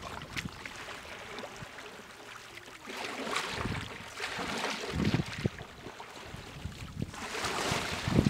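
Wind gusting on the microphone in several surges, over water lapping and splashing around a kayak on rippled open water.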